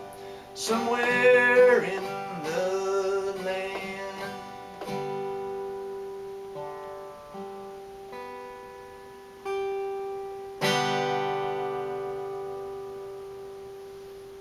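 Acoustic guitar being fingerpicked, with a man's wordless singing over it for the first four seconds or so. Then single plucked notes, and two strummed chords, the louder one about eleven seconds in, left to ring out and fade as the song ends.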